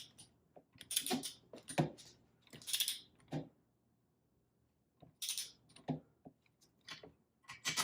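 Metal clicks and clinks of a socket and torque wrench being fitted and worked on engine bolts, with a short ratcheting burst about three seconds in and a pause in the middle.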